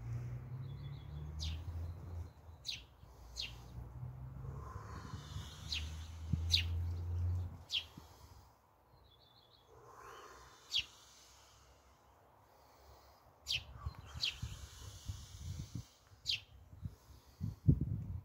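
Small birds chirping: short, sharp calls every second or so, with a brief trill twice. A low rumble runs under them, fading out in the middle and returning near the end.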